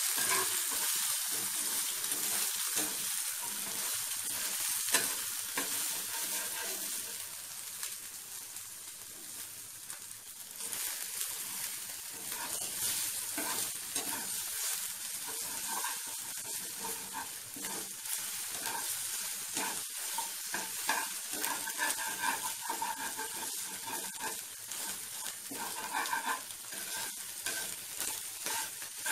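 Egg sizzling in hot oil in a non-stick frying pan while a spatula repeatedly scrapes and chops it into pieces, frying it through. The sizzle eases a little about a third of the way in, then picks up again.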